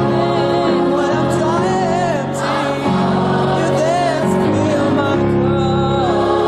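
A gospel-style Christian song: voices singing with vibrato over steady, held instrumental chords.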